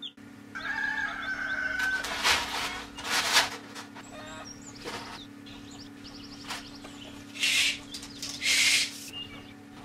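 Chickens clucking and calling, with several short, loud noisy bursts over a steady low hum.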